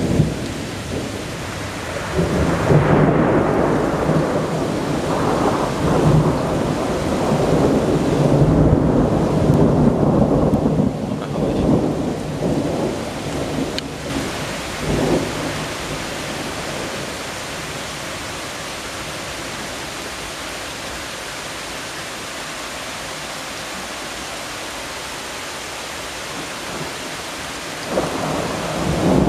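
Thunderstorm: a long rolling rumble of thunder over steady rain for the first half, then rain alone as an even hiss, until a new roll of thunder begins near the end.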